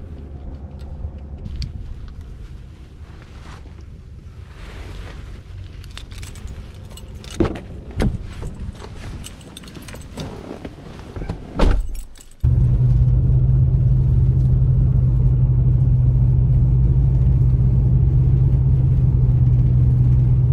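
A few sharp clicks and knocks from a Nissan Armada's door and keys as the driver gets in. About twelve seconds in, a loud, steady low engine hum inside the cab starts abruptly.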